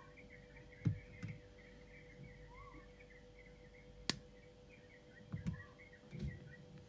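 A single sharp snip of jewellery flush cutters trimming wire just after four seconds in, with a few soft taps from handling the beads and wire. Steady high chirping and a faint hum run underneath.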